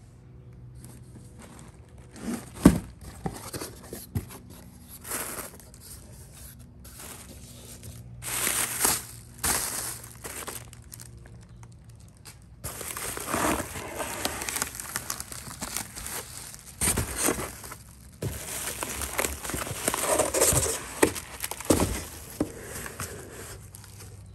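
A cardboard box being opened and unpacked: tape tearing and the flaps handled, then bubble wrap and plastic wrapping crinkling in long rustling bursts. A sharp knock about three seconds in is the loudest sound.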